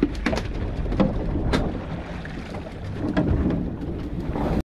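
Wind buffeting the microphone over rough, rumbling noise of water against a small boat's hull, with a few sharp slaps in the first two seconds. The sound cuts off abruptly near the end.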